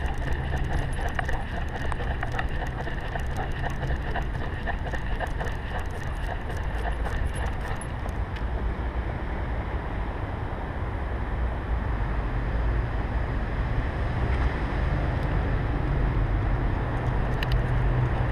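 Steady low rumble of wind and movement noise on a GoPro strapped to a walking dog's chest harness, with quick light clicks through the first half that stop about eight seconds in.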